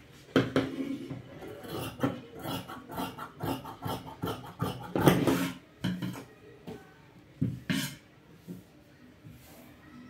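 Fabric scissors snipping through cloth in a run of irregular clicks and cuts, with the fabric rustling as it is handled and laid on the table; the sounds mostly die away about eight seconds in.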